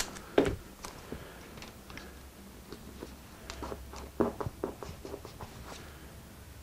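Handling sounds of thin cherry veneer sheets and strips of masking tape being pressed down across a seam: a sharp rustle near the start, then scattered soft ticks and crackles, bunched together about three and a half to five seconds in.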